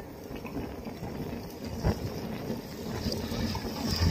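Wind buffeting the phone's microphone over tyre and road rumble while riding a bicycle, with a single sharp knock about two seconds in.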